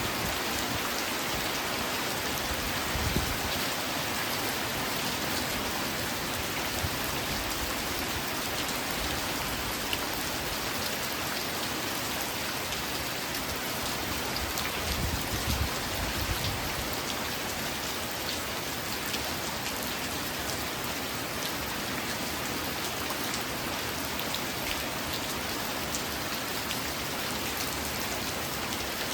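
Steady rain falling, an even hiss of many drops on a surface. Two brief low bumps stand out, about 3 seconds in and again around 15 seconds in.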